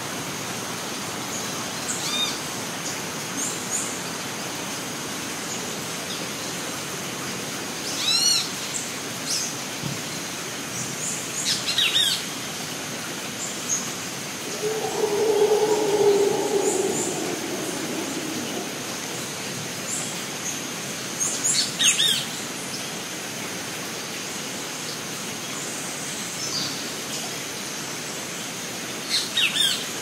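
Rainforest ambience: birds chirping in short bursts every few seconds over a steady high-pitched insect drone and a constant hiss. Near the middle a lower, longer call rises above the background for about two seconds.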